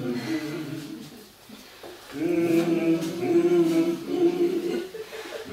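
A small group of voices singing a cappella in slow, held notes, with several parts at once; the singing drops away briefly about a second in and swells back a second later.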